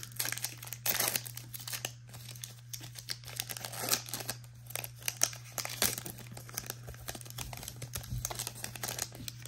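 Foil-lined plastic wrapper of a Donruss basketball card pack crinkling and tearing as it is peeled open by hand, in irregular crackles. A steady low hum sits underneath.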